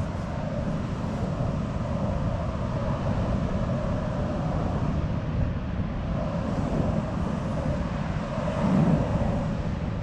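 Wind rumbling on a GoPro's microphone over the steady rush of ocean surf, swelling briefly near the end.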